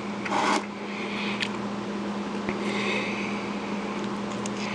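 Hands handling small electronics parts and their packaging: a brief rustle about half a second in, then a few faint clicks and soft rustles, over a steady low hum.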